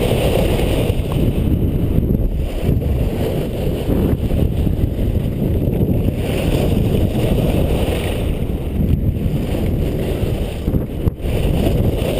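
Wind rushing over the microphone of a head-mounted camera on a downhill ski run, a steady low rumble.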